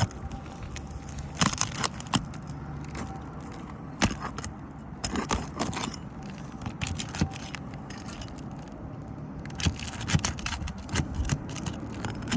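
Scattered sharp clicks, scrapes and clinks of a pry tool working under asphalt shingles to pop the roofing nails loose, over a steady low hum.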